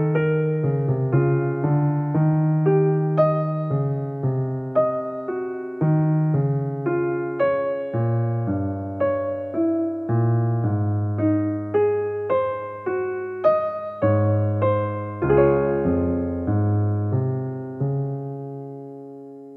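Background piano music: a gentle run of single notes over low accompanying notes, ending on a held chord that fades away near the end.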